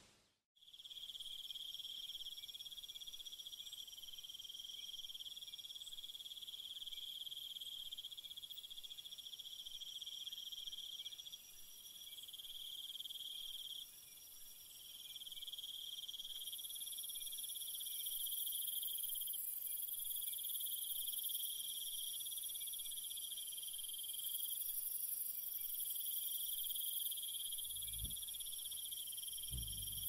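Insect chorus: steady, shrill trilling at several high pitches, with a still higher one joining about halfway through. Two dull low thumps come near the end.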